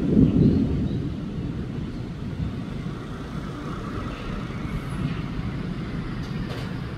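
Long rolling thunder: a low rumble that peaks about half a second in, then rolls on more quietly.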